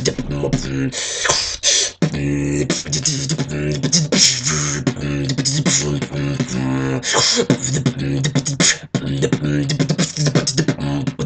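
Solo vocal beatboxing in an improvised tekno / jump-up style: a held low bass tone that drops in and out under fast mouth-made kicks, snares and clicks, with bursts of hissing hi-hat sounds.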